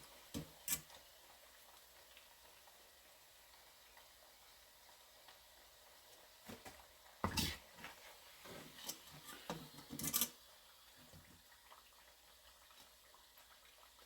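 Scattered clicks and clattering knocks of kitchen utensils and dishes being handled: two light clicks near the start, then a louder cluster of knocks and rattles about seven to ten seconds in.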